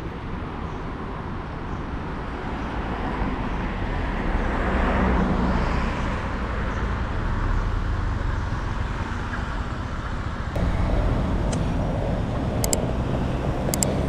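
Steady road-traffic noise, swelling as a vehicle passes about five seconds in. A few sharp high clicks come near the end.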